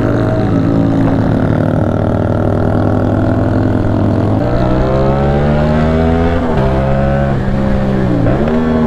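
CFMOTO 450SR parallel-twin engine running under way, heard from the rider's seat. Its note steps up in pitch a little before halfway, then twice near the end drops sharply and picks up again.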